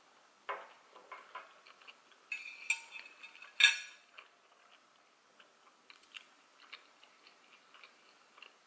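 Chewing a mouthful of sushi roll, close to the microphone: a run of crackles and wet mouth clicks in the first four seconds, the loudest near the end of that run, then only faint scattered ticks.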